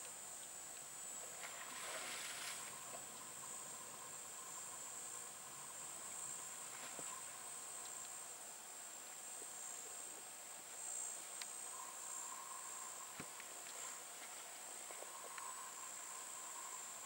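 Insects chirring in a steady high-pitched drone, with a fainter, lower hum that swells in and out now and then and a few soft clicks.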